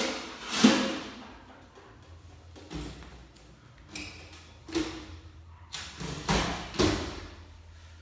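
Kitchen cabinet doors being opened and shut: a run of sharp knocks and bangs, about eight in all, the loudest about half a second in.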